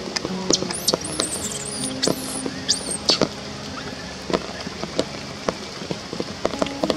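A baby macaque's high-pitched squeaking cries: a run of short squeals that rise and fall in pitch over the first three seconds or so, among scattered faint clicks.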